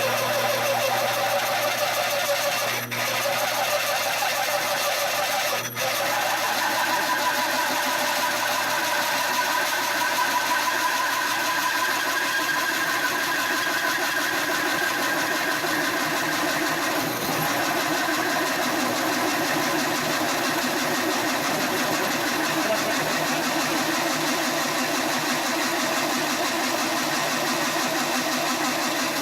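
Horizontal metal-cutting band saw running steadily as its blade cuts down through metal stock, with two brief dips about 3 and 6 seconds in.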